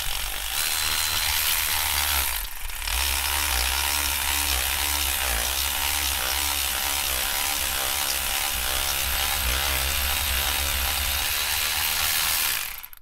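Milwaukee cordless ratchet driving a reamer down through a guide into a blown-out spark plug hole in the cylinder head, its motor running steadily with a wavering whine. It pauses briefly about two and a half seconds in and stops just before the end.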